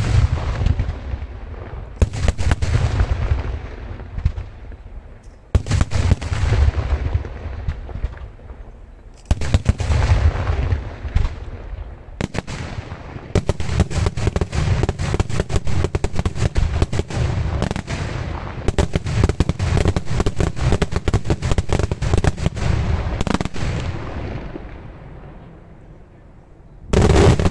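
Daylight aerial fireworks display: shells bursting in waves of sharp bangs. Through the middle the bangs run into a rapid, near-continuous volley, which thins out before a fresh loud burst near the end.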